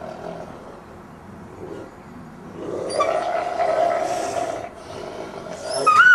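Grey wolves in a dominance ritual: a low rough growl for about two seconds starting a little before the three-second mark. Near the end comes a loud, high-pitched scream from the submissive wolf, a precautionary protest with no bite landed.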